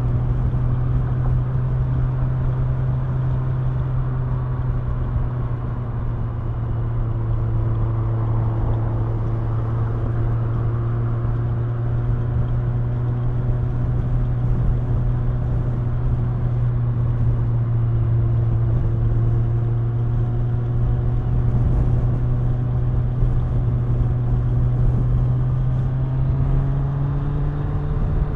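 Kawasaki Ninja 1000's inline-four engine running at steady cruising revs under wind and road noise. Its note dips slightly partway through, then climbs near the end as the bike accelerates.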